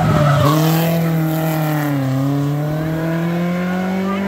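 BMW E36 3 Series rally car's engine at high revs, passing close. Its pitch drops suddenly about half a second in as it shifts up a gear, sags, then climbs steadily as the car accelerates.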